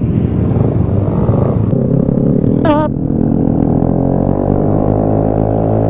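Vespa scooter engine droning steadily while riding, its note settling into an even hum after a rougher first couple of seconds. A brief wavering high tone cuts in about three seconds in.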